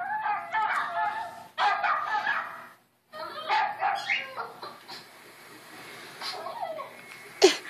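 Small dogs barking and yipping in a video played through an iPad's speaker, with a short break just before three seconds in and one sharp yip near the end.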